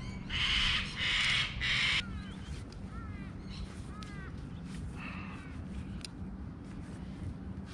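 Three loud, harsh bird calls in a row, each about half a second long, followed by several fainter short chirping calls.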